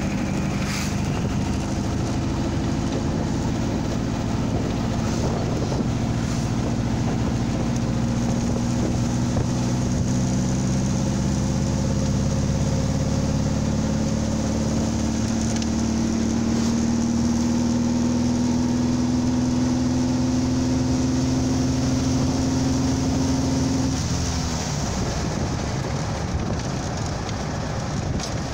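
Dune buggy engine running under way, its note rising slowly and steadily as it gathers speed, then falling away near the end as it eases off. Wind rushes over the microphone throughout.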